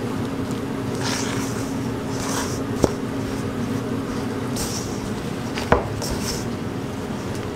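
Flour dough being mixed and rubbed by gloved hands in a stainless steel bowl: repeated short scraping, rustling strokes, with two sharp knocks against the bowl, about three seconds in and near the end. A steady low hum runs underneath.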